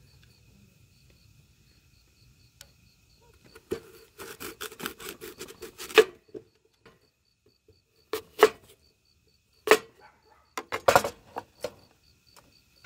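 Kitchen knife chopping an apple on a wooden cutting board: a quick run of knocks about four seconds in, then single chops and a short cluster near the end.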